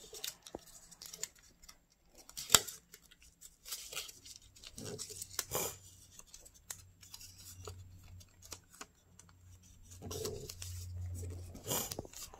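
Origami paper rustling and crackling as it is folded and creased by hand, with one sharp crackle about two and a half seconds in.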